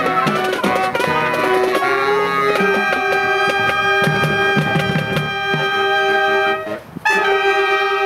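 High school marching band playing, brass to the fore with woodwinds: a run of quick notes, then a long held chord from about two and a half seconds in, a brief break just before seven seconds, and another held chord.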